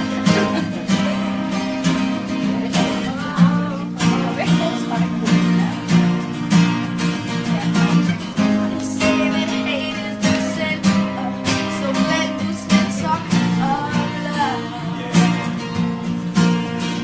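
Acoustic guitar strummed in a steady rhythm, with a voice singing over it at times.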